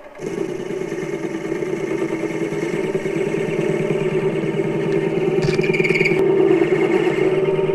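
Mini lathe starting up and running, its motor and spindle turning a steel bolt with a steady whine that grows gradually louder. A short burst of higher-pitched noise comes about five and a half seconds in.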